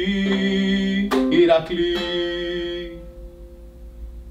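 An acoustic string instrument strummed in chords, with a fresh strum about a second in. The last chord rings on and dies away about three seconds in.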